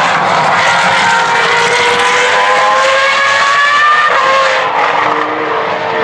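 Former Formula One car's engine at high revs under acceleration, its pitch climbing steadily for about four seconds and then dropping sharply at an upshift. The engine carries on at a lower pitch near the end.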